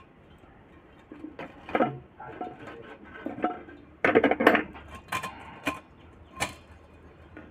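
Coiled heating-element wire being pressed and stretched into the grooves of a ceramic hot-plate base: light, irregular metallic rattles and scrapes. A run of sharper clicks comes between about four and six and a half seconds in.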